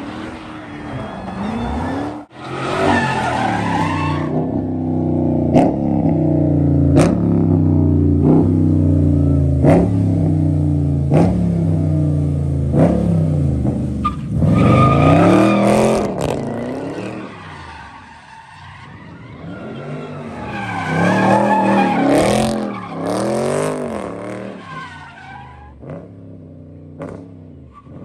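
Muscle-car V8 engines revving hard during burnouts and donuts, the tyres screeching. For several seconds one engine holds high revs steadily, with a sharp crack about every second and a half. Then the revs rise and fall again and again in quick blips.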